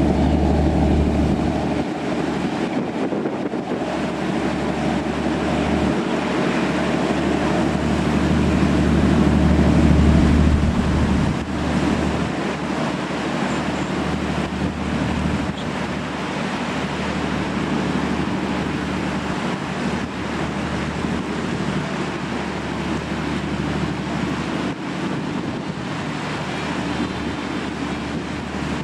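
A fast passenger ferry's engines droning steadily as it passes at speed, loudest about ten seconds in and then dropping off, over the wash of waves and wind on the microphone.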